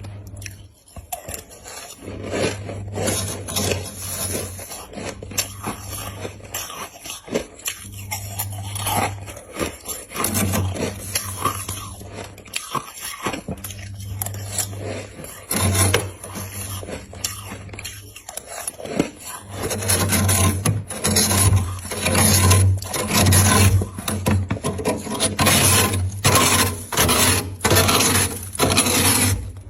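Ice being bitten and chewed close to the microphone: a run of irregular crunching and crackling. It gets denser and louder about two-thirds of the way in.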